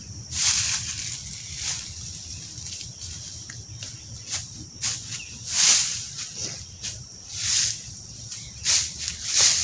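Dry leaf litter rustling and crunching in a run of uneven swishes as a person gathers and clears leaves and debris from the forest floor by hand.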